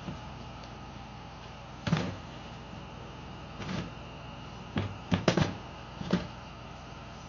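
A series of short, sharp knocks and clicks from hard objects being handled, six or so spread irregularly, two of them close together about halfway through, over a steady low hum.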